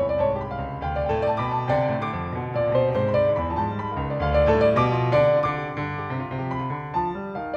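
Piano music: a fast, dense flurry of notes in the middle register over held low bass notes.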